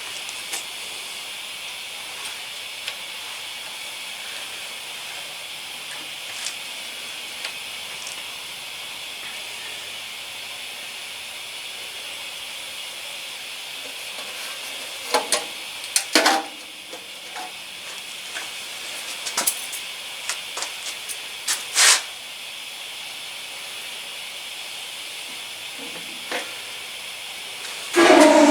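A steady hiss with a few sharp metallic clanks. Near the end an engine starts running loudly.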